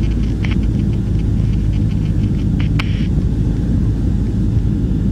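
Cessna 152's four-cylinder piston engine and propeller droning steadily, heard from inside the cabin during the descent on approach. A single brief click comes a little past the middle.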